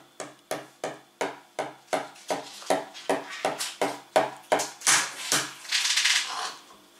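A hard-boiled egg knocked repeatedly on a wooden table to crack its shell for peeling: about fifteen sharp taps at roughly three a second, followed near the end by a brief rustling hiss.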